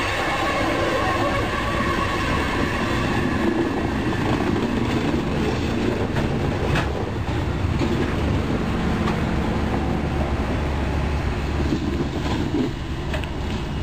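Freight train cars rolling past close by: a steady rumble of steel wheels on the rails, with a few sharp clacks.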